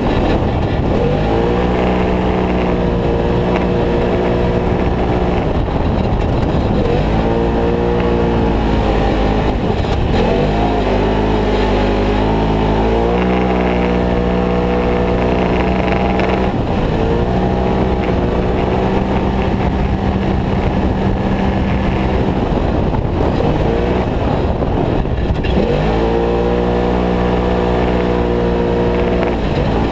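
Polaris RZR XP Turbo's turbocharged twin-cylinder engine under hard racing throttle, heard from the cockpit. It holds high revs on the straights and drops several times as the driver lifts off, then climbs back up.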